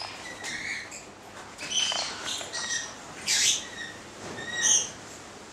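Yellow-thighed caiques calling: a run of short whistled chirps, with a louder, harsher squawk about three and a half seconds in.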